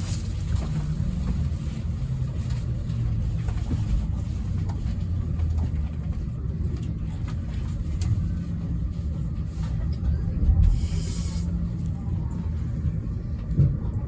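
Interior running noise on the upper deck of a JR East E217 series bilevel Green car: a steady low rumble of the train on the rails with scattered light clicks, and a short hiss about eleven seconds in.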